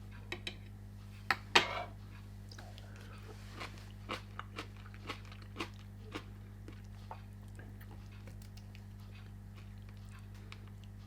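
Eating sounds at the table: scattered sharp clicks and crunches as chopsticks work at and bite into a large piece of cabbage kimchi, the loudest about one and a half seconds in, thinning out after about six seconds.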